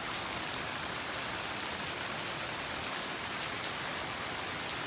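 Heavy rain falling steadily in a storm, with a few sharp taps of single drops standing out.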